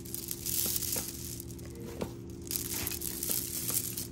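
Hands untangling a clustered faux-pearl necklace: rustling with small clicks of the pearls and chain knocking together as they are pulled apart.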